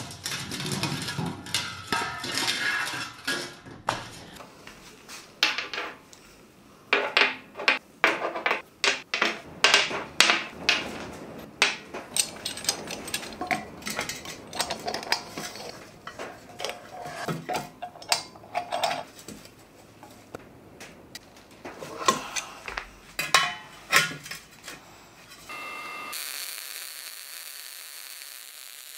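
Metal clinks and knocks of hand tools and brass pipe fittings being handled and tightened, in irregular bursts of sharp taps. Near the end these give way to a steady hiss.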